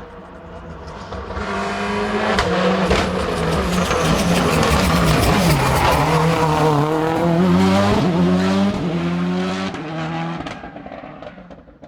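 Rally car engine passing at speed: it rises in from a distance, revs hard with its pitch falling and climbing through gear changes and a lift-off while close by, then fades away near the end.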